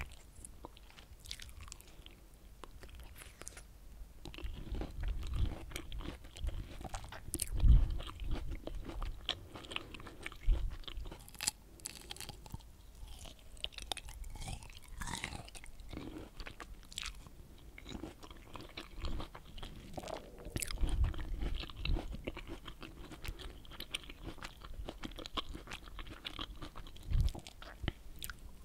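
Close-miked biting and chewing of pomelo segments: irregular crunches and mouth clicks, the loudest about eight seconds in.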